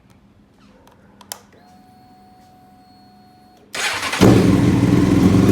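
Honda CBR954RR's inline-four engine being started: a click and a faint whine for about two seconds, then a brief crank, and the engine catches a little past four seconds in and settles into a steady run. Through its newly fitted exhaust it runs way quiet.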